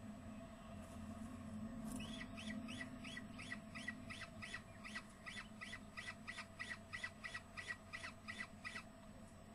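Peregrine falcon calling: a rapid, even series of short harsh calls, about three a second, each dropping slightly in pitch. The calls start about two seconds in and stop shortly before the end, over a steady low hum.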